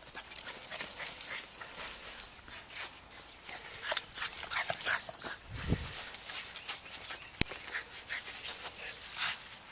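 A Boston terrier playing with a soft Frisbee: scattered light clicks and rustling, with a dull thump a little past halfway and a sharp click about two seconds later.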